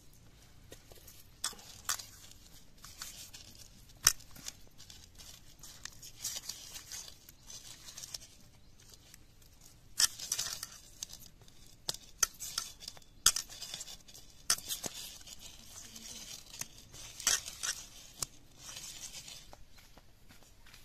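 Hands mixing raw fish pieces with turmeric and salt in a metal pan, a wet rubbing and shuffling with occasional sharp knocks of pieces against the pan, the loudest about 4, 10 and 13 seconds in.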